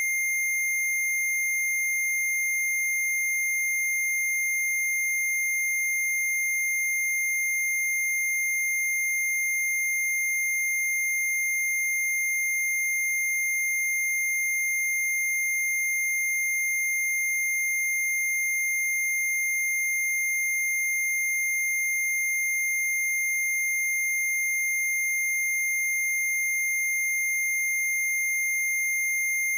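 Electronically generated steady tone played as a 'Rife frequency' track: a single high pitch held completely unchanged, with fainter overtones above it and no music.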